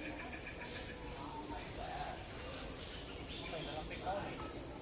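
Insects droning steadily at a high pitch, with faint voices in the background.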